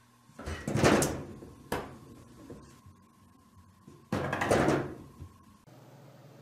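A wooden-framed frosted-glass sliding door rattling and banging in its track as a cat paws at it: two loud rattles, each about a second long, with a single sharp knock between them.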